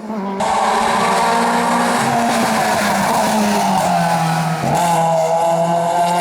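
Race car engine at high revs on a hillclimb, starting abruptly, with tyre noise. The engine note dips briefly just before five seconds in, then picks up again.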